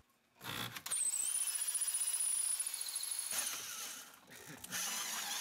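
Electric drill driving a 2-inch hole saw into a clamped wood block: a steady high whine over a cutting hiss. It starts about half a second in, the whine rises in pitch about a second in, and it drops out briefly near the end.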